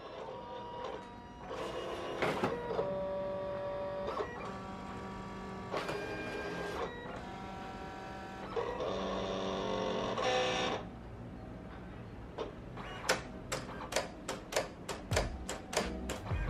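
Silhouette Cameo 4 cutting machine at work, its motors whining in short runs that stop and change pitch as the carriage and rollers drive the blade, then a run of sharp clicks near the end. It is making a through-cut pass at maximum blade force, three passes, cutting the sticker sheet down to its backing.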